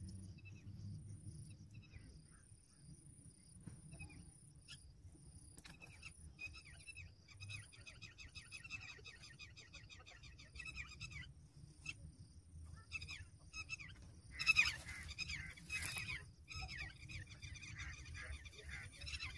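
Birds calling in repeated runs of quick, chattering notes that come and go, with the loudest, harshest calls about three-quarters of the way in. A faint high, broken tone runs behind them.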